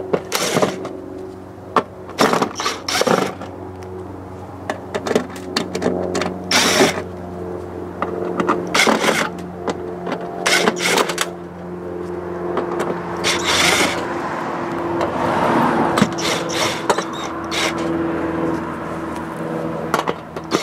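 Cordless drill/driver backing screws out of an aluminum trailer drip cap in short, repeated bursts. A steady low hum runs underneath.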